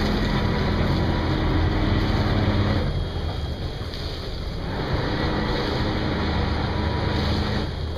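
Jeanneau yacht's engine and bow thruster running under joystick control as it is pushed sideways toward a pontoon, churning the water. A steady hum drops out about three seconds in and comes back nearly two seconds later.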